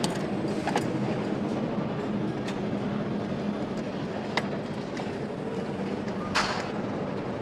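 Motorcycle assembly-line floor noise: a steady machinery hum with scattered short clicks and knocks from tools and parts. The strongest knock comes about six seconds in.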